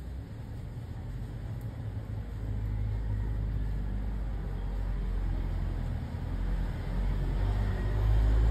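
Low engine rumble of a motor vehicle, growing steadily louder toward the end.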